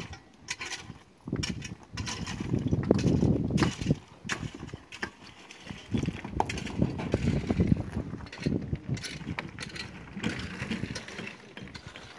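Irregular clacks and knocks of stones being set by hand into gabion wire baskets, over an on-and-off low rumble.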